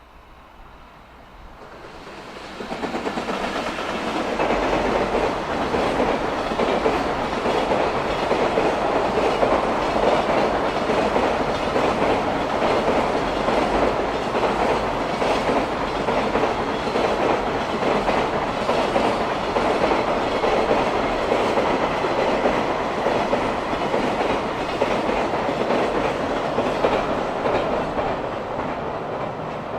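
Freight train passing close by, its wheels clattering rhythmically over the rail joints. The sound builds up over the first few seconds, holds loud and steady, and eases slightly near the end.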